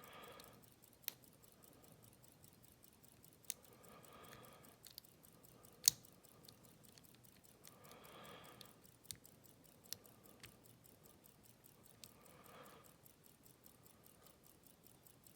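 Faint, scattered metallic clicks and ticks of a lock pick and tension wrench working the pins of an Abus 72/40 brass pin-tumbler padlock, with one sharper click about six seconds in. A soft rush of noise comes about every four seconds.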